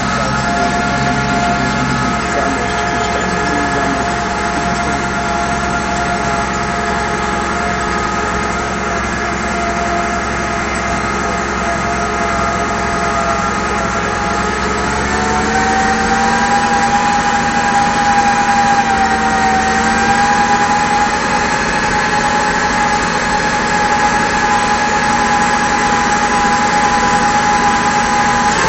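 Case IH 1056 XL tractor's six-cylinder diesel engine running steadily under load, heard from inside the cab while it pulls harrows across a field. About halfway through, the engine note rises a little and gets slightly louder.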